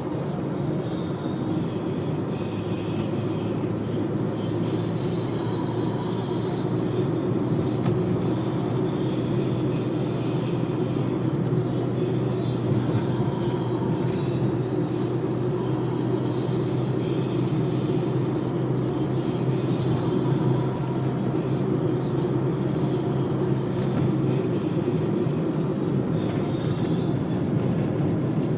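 Steady low rumble of a running vehicle, with a low hum in it that drops out near the end.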